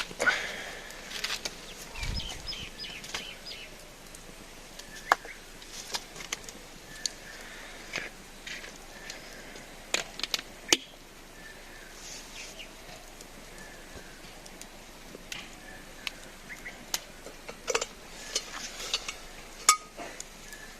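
Scattered sharp knocks and clinks, a few louder than the rest, with birds chirping faintly now and then.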